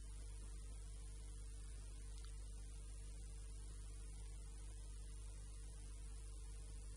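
Faint steady electrical hum with a low hiss, the background noise of the recording, unchanging throughout.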